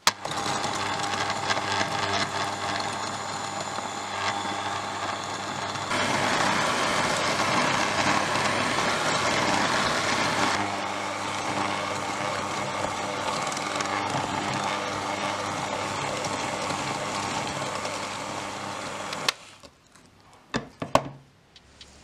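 Electric hand mixer running steadily, its wire beaters creaming butter and sugar in a glass bowl, louder for a few seconds about a quarter of the way in. The motor cuts off suddenly near the end, followed by a couple of sharp knocks.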